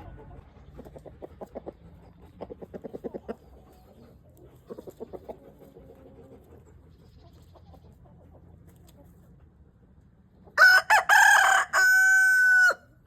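Rooster clucking in short quick runs, then crowing loudly near the end: a broken first part and a held final note, about two seconds in all.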